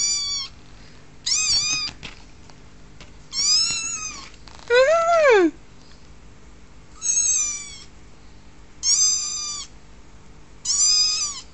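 Kitten meowing over and over in short, high, thin calls, about seven meows spaced a second and a half to two seconds apart; one call near the middle is lower and slides down in pitch.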